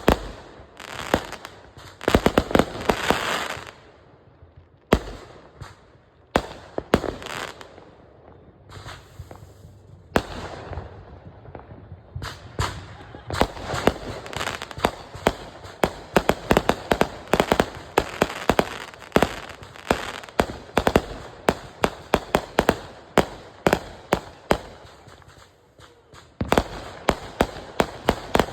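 Consumer fireworks going off in a rapid string of sharp bangs with crackling, thickening into a dense barrage of quick reports from about halfway through and growing louder near the end.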